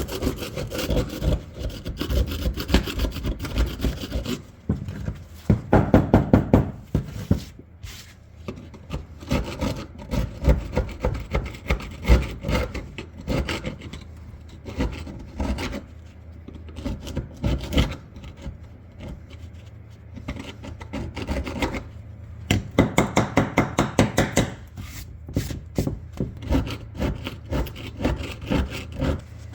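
Rust being scraped and chipped off the metal of an old double-barrel shotgun with a hand tool: rapid rasping strokes in runs, loudest in quick bursts about six seconds in and again a little past twenty seconds.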